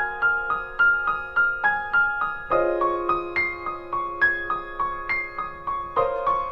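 Background piano music: a gentle, even run of single notes, about three a second, over held chords that change twice.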